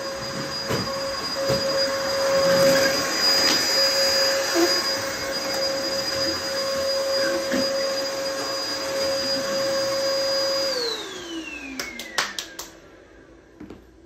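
Upright bagless vacuum cleaner running with a steady whine. About eleven seconds in it is switched off, and the motor winds down in a falling whine, followed by a few sharp clicks.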